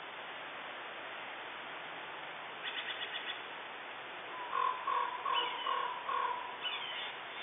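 Steller's jays calling: a quick rattle of short notes about two and a half seconds in, then a run of about five short, lower calls and a few down-slurred calls near the end. A steady hiss lies underneath.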